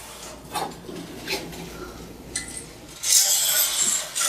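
Soapstone marker scraping along a steel plate, drawing a cut line, with a few light metallic clinks before one longer scratchy stroke about three seconds in.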